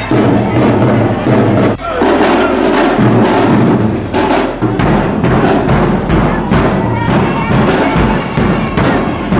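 Marching band playing: horns over a steady drum beat, the bass drums hitting more heavily from about halfway through.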